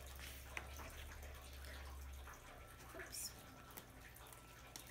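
Soft paper rustles and small handling clicks as a page of a hardcover picture book is turned, the loudest rustle a little after three seconds in. A faint low hum in the room stops a little past halfway.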